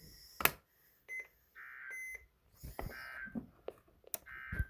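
Three short bursts of Emergency Alert System data tones, the warbling two-tone SAME code, each about half a second long and about 1.4 s apart: the end-of-message signal of the alert. A sharp, loud click about half a second in, and a smaller one near the end.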